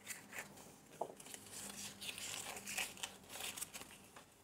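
Faint crinkling and rustling of small wrapped packets from a surprise egg as they are handled and set out.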